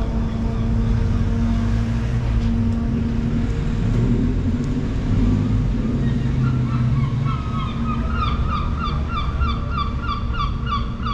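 A gull calling a long series of rapid laughing notes, about three a second, starting a little past halfway, over a steady low rumble of street traffic.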